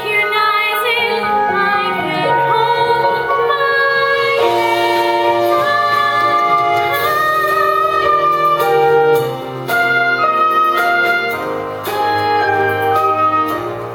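Musical theatre song: instrumental accompaniment with long held melody notes, the notes changing about once a second.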